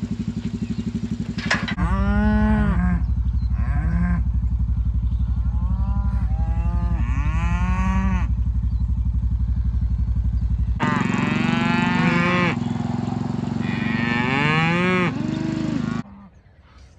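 Cattle mooing again and again, several calls overlapping, each rising and then falling in pitch. A steady engine idles beneath them and is heard alone for the first couple of seconds. Everything cuts off suddenly near the end.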